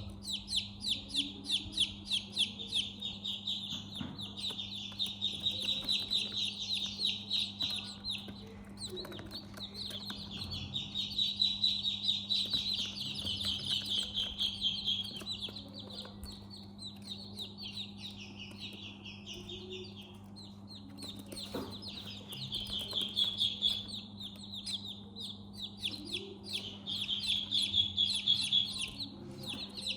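A group of newly hatched chicks peeping continuously, many rapid high-pitched cheeps overlapping, thinning out for a few seconds in the middle before picking up again, over a steady low hum.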